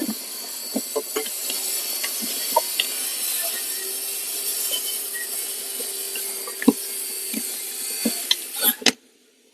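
A cabin air filter being pushed into its plastic housing: rubbing and scraping with scattered light clicks and knocks over a steady hiss. There is a sharper knock about two thirds of the way in and another near the end, then the sound cuts off suddenly.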